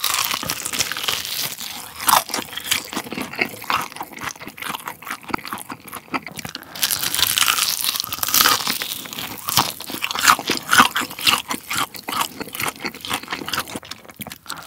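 Crispy batter of a fried chicken drumstick crunching as it is bitten into and chewed, a dense run of crackles with louder crunches scattered throughout.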